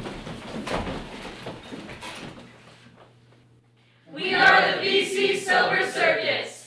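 Rustling and shuffling as several people move into place, fading out; then, about four seconds in, a group of voices calls out together in unison for a couple of seconds.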